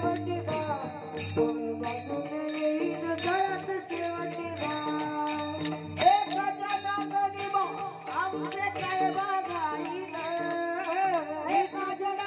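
Marathi Warkari bhajan music: a wavering melody line carried over the steady clash of small brass hand cymbals (taal) keeping the beat.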